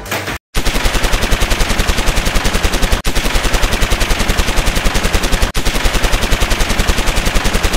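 Rapid machine-gun fire, about eight shots a second, with two brief breaks along the way.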